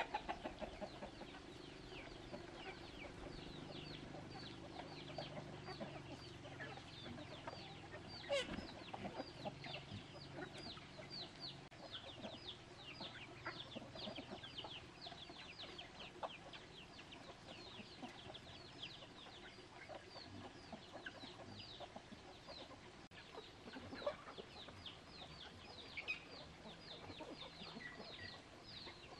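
Chickens clucking, with many short, high, falling peeps throughout. A few sharp knocks.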